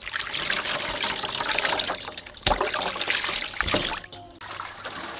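Water pouring and splashing over whole fish as hands rub and rinse them in a stainless steel bowl, with a sharp knock about halfway through. The pouring stops about four seconds in.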